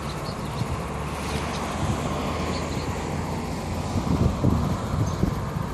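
Jet airliner climbing out after takeoff, its engines a steady distant rumble, with gusts of wind buffeting the microphone about four to five seconds in.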